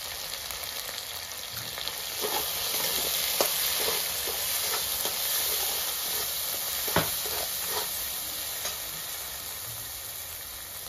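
Spice paste of cumin, green chilli, turmeric and salt sizzling in hot oil in a metal karai, stirred with a metal spatula that scrapes and clicks against the pan several times, with one sharper knock about seven seconds in.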